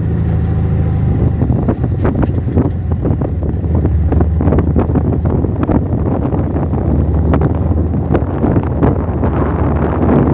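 Off-road vehicle engine running steadily while driving over a rough sandy track, with frequent knocks and rattles from the bumps.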